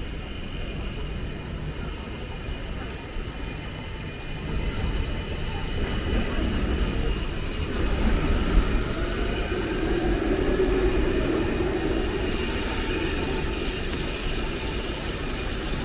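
A large vehicle passing, growing louder from about four seconds in with a slow rising whine, over a steady low rumble of wind on the microphone.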